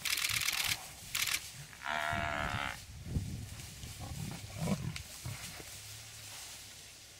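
Lions attacking a Cape buffalo: harsh rasping bursts at the start, then one short distress bellow from the buffalo about two seconds in, followed by low growls and grunts from the lions.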